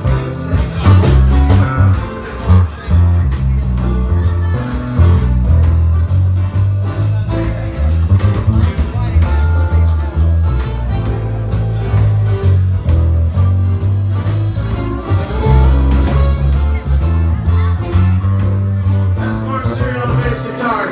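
Small live band playing a song: electric bass, acoustic guitars and a drum kit keeping a steady beat, with a voice singing at times.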